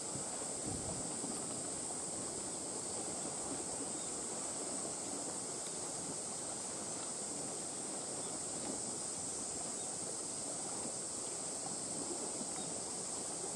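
Steady outdoor wind and water noise, even throughout with no distinct events, under a constant high hiss.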